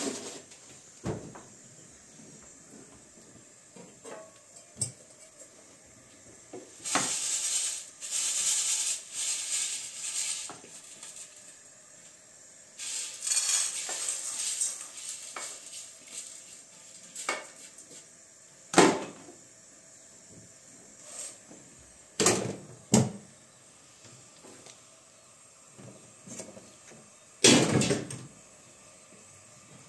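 Dry beans rattling as they are shaken and poured in a large aluminium pot lid, in several spells of hissing rattle. Sharp clanks of aluminium pots and lids come a few times in the second half, the loudest near the end.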